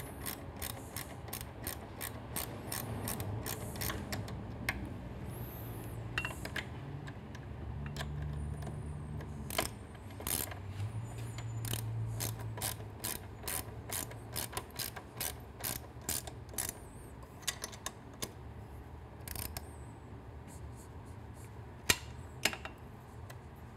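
Hand ratchet with a 12 mm socket clicking as a bolt is tightened, the pawl ticking in quick runs on each back-swing. The clicks thin out over the last several seconds, with a couple of louder clicks near the end.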